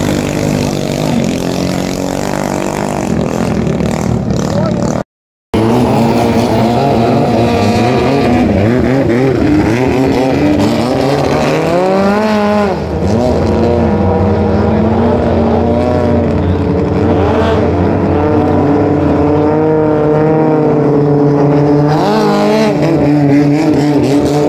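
Engines of racing Thai longtail boats running at high revs, several engine notes overlapping, their pitch rising and falling as the boats speed past. The sound drops out briefly about five seconds in.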